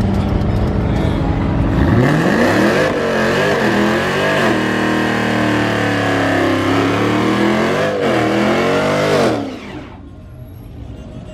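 Car engine revving hard, its pitch climbing and falling several times over about seven seconds. It cuts off suddenly near the end.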